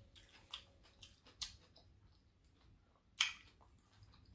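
Faint mouth sounds from a person at a meal: a few soft clicks and smacks, then one louder, short breathy hiss a little over three seconds in.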